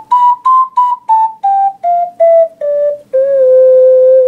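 Plastic Alto C ocarina playing a scale in separate tongued notes, clear and whistle-like. It peaks about half a second in, then steps back down about three notes a second and ends on a long held low note.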